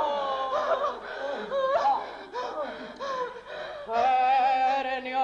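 Several voices laughing and crying out in high, gliding sounds. About four seconds in, one long held sung note begins.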